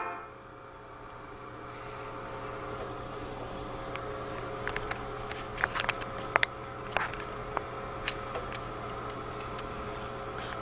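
Steady electrical hum and hiss of room tone, with a scatter of small sharp clicks and ticks from about four seconds in.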